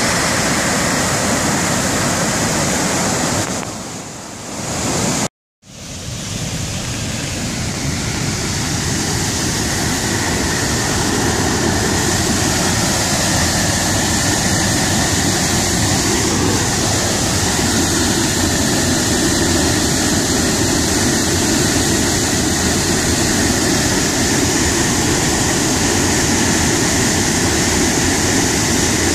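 Waterfall pouring in full white-water flow: a steady, loud rush of falling water. About four seconds in it dips, cuts out for a moment, then swells back up over the next couple of seconds.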